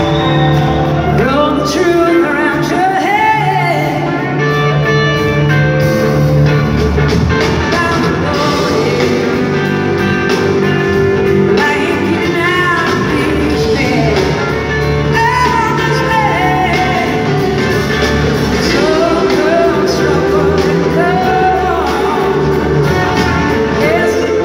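Live blues-rock band playing a song: singing over electric guitar, bass, keyboards and drums.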